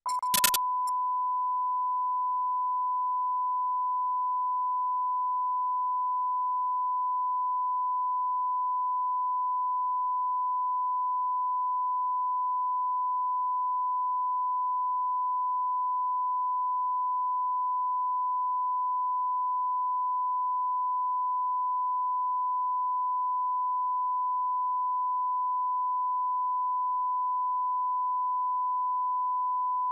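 Broadcast line-up test tone: a single pure, steady pitch played with colour bars as a level reference. A brief crackle comes at the very start.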